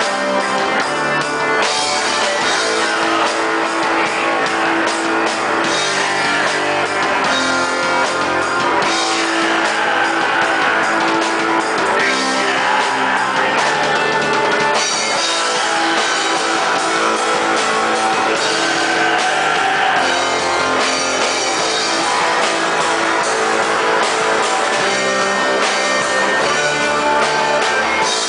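Black metal band playing live: distorted electric guitars and a drum kit, loud and dense without a break.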